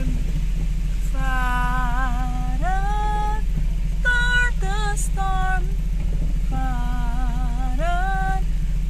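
A woman singing a slow tune with no clear words, in phrases of held notes that waver slightly, over the steady low rumble of a car heard from inside the cabin.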